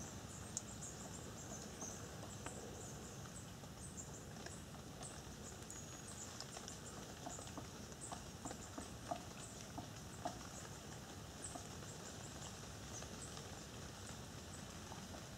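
A woodpecker pecking at wood: faint, irregular taps that come most often near the middle, with scattered short high chirps.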